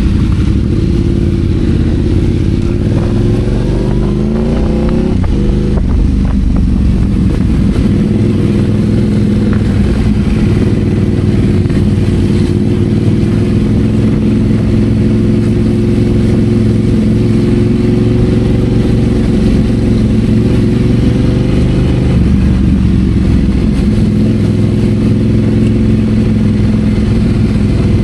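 Yamaha Ténéré 700's parallel-twin engine pulling away and accelerating, rising in pitch over the first few seconds, then running at steady cruising revs. The revs drop about 22 seconds in, then hold steady again.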